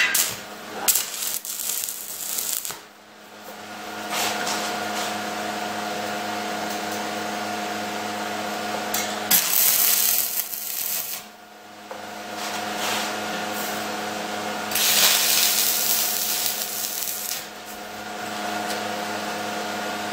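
ESAB Rebel 215ic welder's cooling fan running with a steady hum, while a 3/32 7018 stick electrode strikes two tack welds, each a crackling arc hiss of about two seconds, near the middle and about three-quarters through. A few metal clinks come in the first three seconds.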